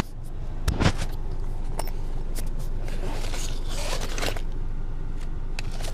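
Rustling and scraping handling noise, with a couple of sharp clicks a little under a second in, over the steady low rumble of a car interior.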